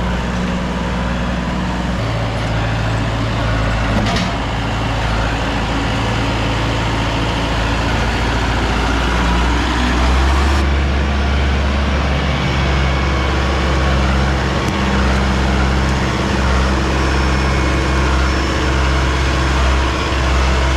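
Mahindra tractor's diesel engine running as it drives and works its front-loader grapple. The engine note steps down about two seconds in, then grows louder and shifts again around ten to twelve seconds in.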